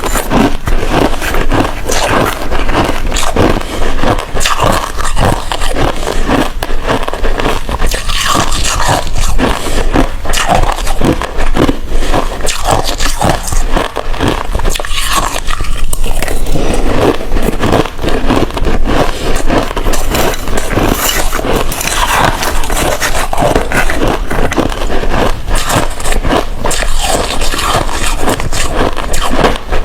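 Hard ice being bitten and chewed close to the microphone: loud, continuous, irregular crunching and cracking.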